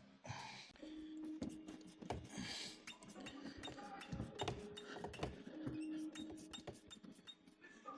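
Faint clicks and scrapes of a Phillips screwdriver working a deep-set screw inside a car door panel, with short squeaks among them.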